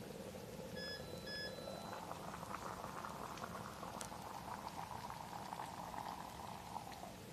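Two short electronic beeps, then water heating in a small electric travel kettle: a rising hiss with crackling bubbles that stops abruptly near the end.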